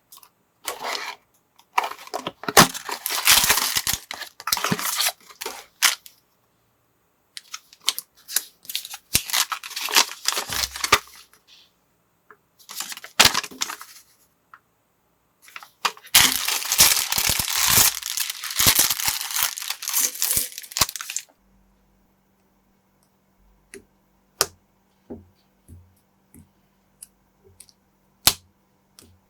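Thin plastic packaging crinkling and tearing in several long, rustling stretches as parts bags are opened and handled. Near the end it turns to a few scattered sharp clicks of plastic building bricks over a faint steady hum.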